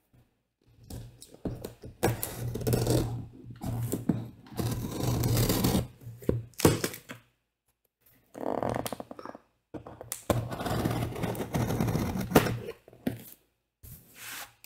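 Cardboard box and packaging being handled and opened on a tabletop: irregular rustling and scraping with thumps, in two long stretches with a short pause about eight seconds in.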